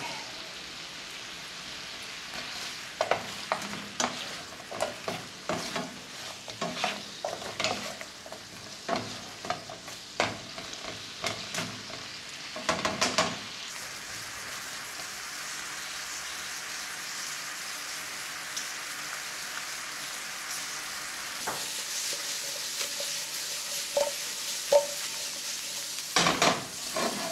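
Baby carrots sizzling in a butter, honey and orange-juice glaze in a skillet as the glaze cooks down, with a spatula scraping and knocking against the pan as they are stirred. The stirring stops about halfway and the sizzle carries on steadily, then the stirring starts again near the end.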